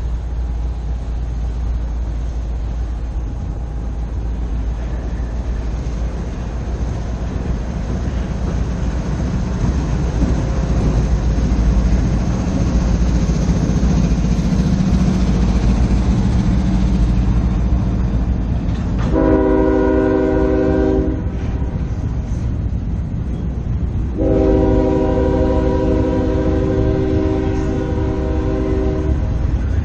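CSX diesel freight locomotive passing with a steady low rumble that builds up, then sounding its air horn: a blast of about two seconds, then a longer blast of about five seconds.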